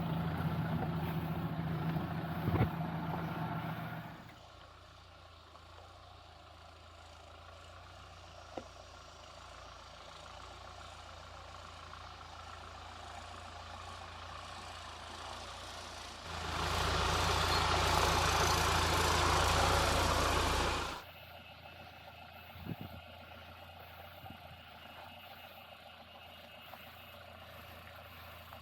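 Off-road vehicle engine running, dropping to a quiet low idle about four seconds in. Roughly two-thirds of the way through comes a louder, noisier stretch of about four and a half seconds that starts and stops abruptly, and then the quiet hum returns.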